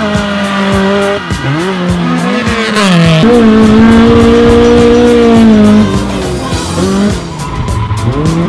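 Drift car's engine revving hard, its pitch swooping down and up, then held high for a few seconds before dropping and climbing again, with tyre squeal as the car slides. Heard from inside the car, mixed with background music with a steady beat.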